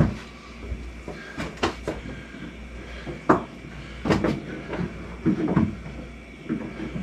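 Scattered knocks and scrapes, about half a dozen sharp ones, as a camera and wire are jiggled about inside a ceiling cavity, over a steady low hum.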